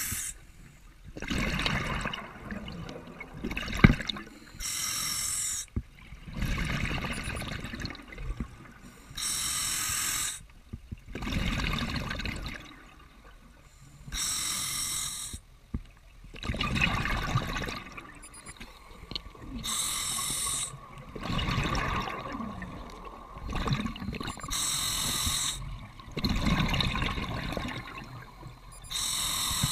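Scuba diver breathing through a regulator underwater: a rough inhale followed by a hiss of exhaled bubbles. The cycle repeats about every five seconds.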